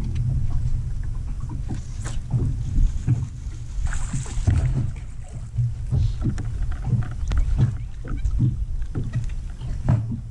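Water lapping and slapping against the hull of a bass boat, under an uneven low wind rumble on the microphone, with scattered small knocks.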